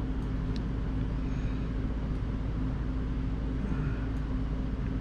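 Steady low hum of room background noise, with a few faint clicks.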